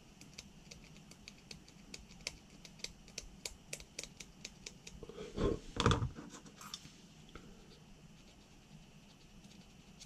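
Hobby knife scraping and shaving sprue nubs off a plastic model kit part: a run of small quick clicks. About halfway through come a couple of louder knocks as the knife is put down on the cutting mat and side cutters are picked up.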